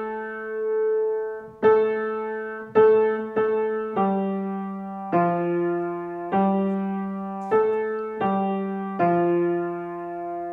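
Grand piano (Steinway) playing a slow melody, a new note struck about once a second and left to ring.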